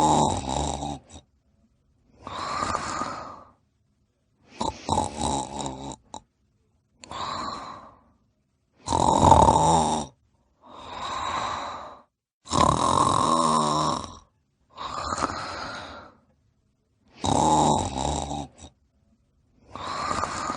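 A person snoring in a steady rhythm: a rattling, vibrating snore alternates with a smoother, airier breath, about one full breath cycle every four to five seconds, with short silences between.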